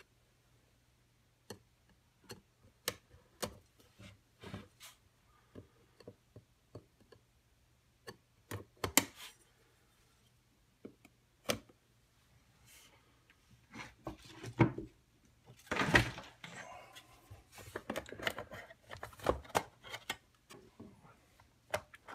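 A knife cutting open a camera's cardboard and plastic packaging, with scattered sharp clicks and taps of the box being handled and short scraping, rustling stretches toward the end. A faint steady hum runs underneath.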